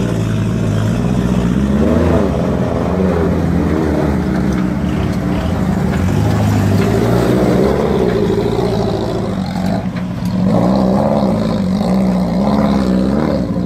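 Daihatsu Feroza 4x4 with a 2.8 turbo engine running under load through mud, its revs rising and falling several times.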